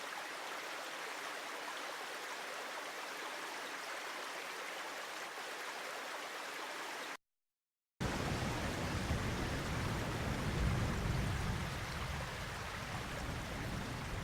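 River recording: steady rushing, flowing water. It cuts out for a moment about halfway through, then returns with a deep rumble underneath that swells and eases off.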